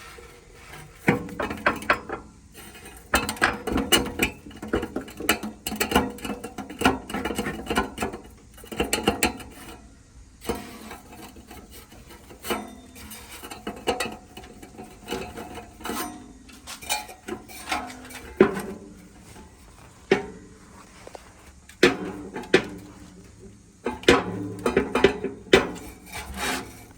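Dented steel exhaust silencer of a Nissan Serena e-POWER clanking and rattling in irregular bursts as it is knocked or moved. It sounds like loose parts inside, a rattle likened to a detached internal baffle plate; the inlet pipe inside is crushed and broken.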